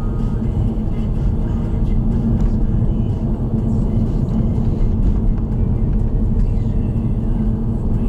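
Steady low road and engine rumble of a car driving, heard from inside the cabin.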